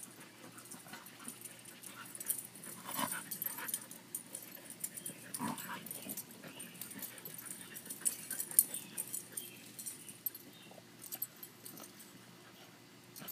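Dogs, a beagle and two sato mixes, playing and rolling in grass: scattered small rustles and low dog noises, with two louder short dog sounds about three and five and a half seconds in.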